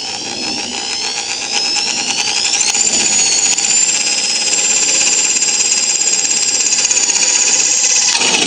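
Electric drill boring a hole through a stainless steel pot lid. The motor's whine rises in pitch for about the first three seconds as the trigger is eased in from a slow start, then holds steady at full speed and cuts off suddenly near the end.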